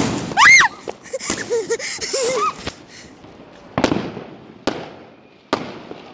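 Fireworks going off: popping and crackling, then three sharp, separate bangs in the second half, each trailing off in a short echo.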